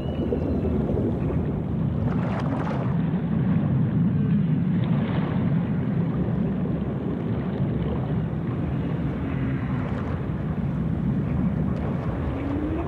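Steady low underwater rumble, a deep noisy hum with little change, and a faint rising tone near the end.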